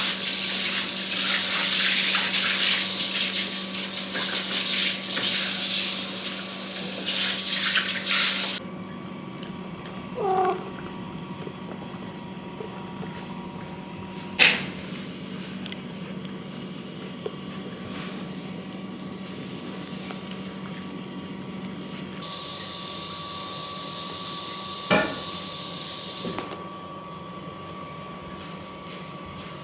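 Water running hard, as from a tap, that cuts off suddenly about eight seconds in; later a short, high, gliding animal whine, a couple of sharp clicks, and a few seconds of thin hiss near the end.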